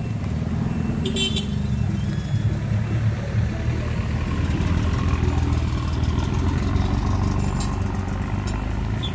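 Engines of a minivan and a motorcycle running as they pass close by and pull up a steep climb: a low, steady drone that grows louder over the first few seconds.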